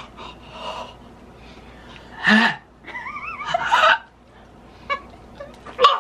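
A man gasping and groaning in disgust while chewing a dog-food bacon-strip treat. There is a sharp gasp about two seconds in, then a wavering, whimpering cry, and another sharp gasp just before the end.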